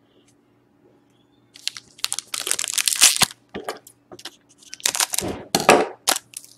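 Hockey card pack wrapper being handled and torn open, in repeated crinkling, crackling bursts that start about a second and a half in.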